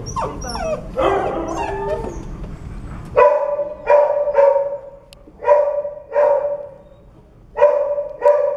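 Puppies whining and yelping, cries sliding up and down in pitch. From about three seconds in, a dog barks repeatedly: about seven short barks on the same pitch.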